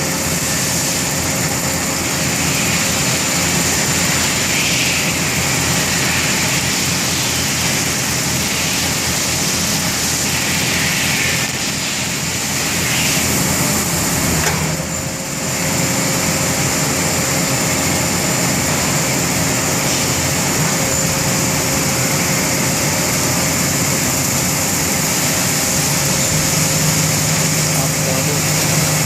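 Cincinnati Milacron Avenger 200S CNC lathe running under power: a steady machine hum with a constant high-pitched whine. The sound dips briefly about halfway through.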